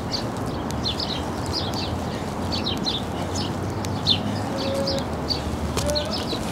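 Small birds chirping busily, short high chirps following one another over a steady low background rumble.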